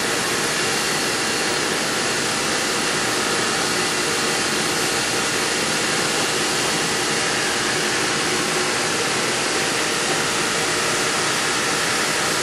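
A machine running steadily, giving an even, unbroken hiss.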